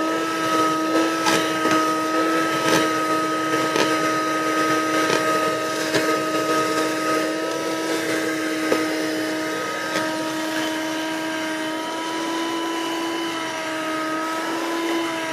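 A $10 portable 12-volt car vacuum running steadily with a high, even motor whine. Scattered sharp clicks come as it sucks up bits of trash, mostly in the first half.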